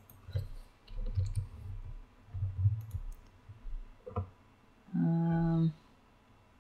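Computer mouse clicks and keyboard key presses, among them a Ctrl+Z undo, mixed with dull low thumps from desk handling. About five seconds in comes a brief steady hum lasting under a second.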